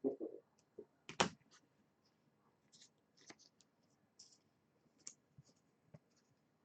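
Trading cards and their plastic packaging being handled: scattered light clicks and brief rustles, with one sharper knock about a second in.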